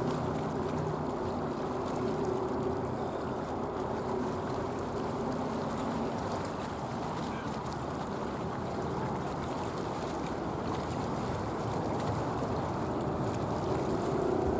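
Airliner jet engines rumbling steadily, with a faint held hum in it.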